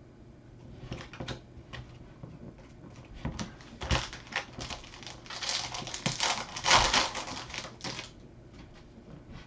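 Trading cards being flipped through and shuffled by hand: scattered quick clicks and slides of card stock, growing into denser, louder rustling in the second half.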